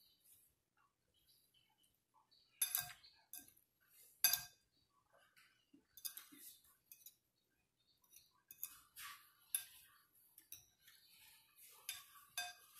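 Metal fork clinking and scraping against a plate in scattered sharp clinks, the loudest about four seconds in.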